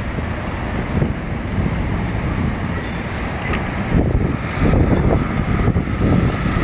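Road traffic through a city intersection: cars and a box truck rumbling past, with a thin high squeal for about a second and a half, about two seconds in.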